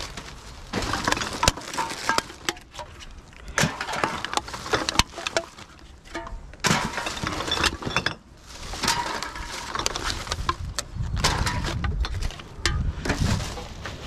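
Plastic rubbish bag rustling and crinkling as gloved hands rummage through it, with many sharp clinks and knocks of glass bottles and rubbish being shifted. A low rumble comes in near the end.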